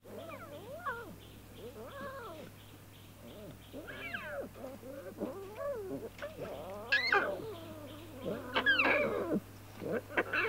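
Lion cubs mewing, a string of short cries that rise and fall in pitch, coming about every second and a half, the loudest a little past the middle.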